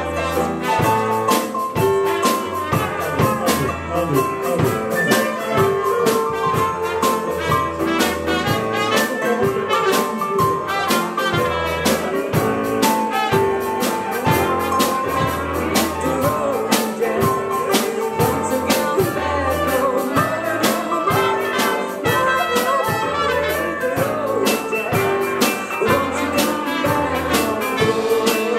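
Live band jam with a jazz feel: trumpets and saxophone playing over a drum kit keeping a steady beat.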